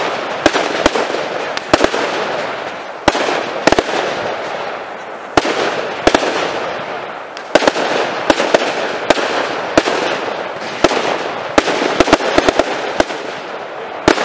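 Fireworks display: aerial shells bursting in a run of sharp bangs at irregular intervals, sometimes several in quick succession. Between the bangs a steady crackle from the crackling-star effects fills the air.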